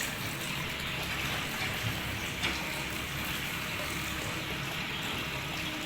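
Water running steadily from a tap or shower for a dog's bath, a continuous hiss with one small knock about two and a half seconds in.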